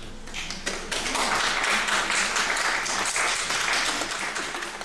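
Audience applauding: a dense patter of many hands clapping that builds within the first second and begins to fade near the end.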